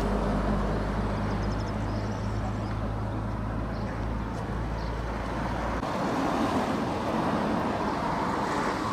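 Roadside traffic noise: vehicles passing on the highway over a steady low engine hum that drops away about six seconds in.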